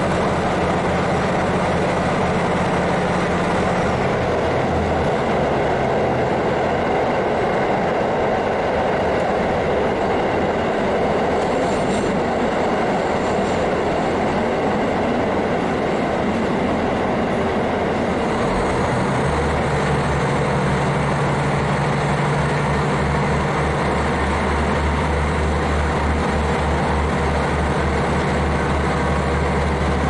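KiHa 40 diesel railcar under way, its N-DMF13HZI diesel engine droning under a steady rumble of wheels on the rails. About two-thirds of the way through the engine's low drone grows louder.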